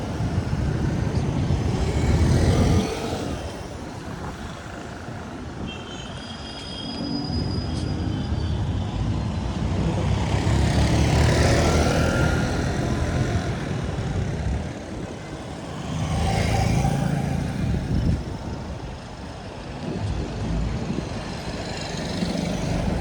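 Street traffic: motor vehicles passing one after another, each engine swelling and fading away, with a few short high-pitched tones about six to eight seconds in.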